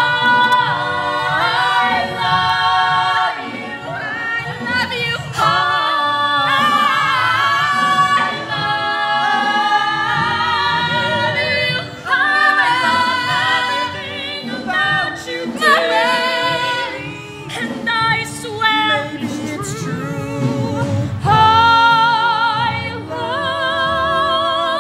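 Musical-theatre singing with accompaniment. Near the end a long note is held with vibrato.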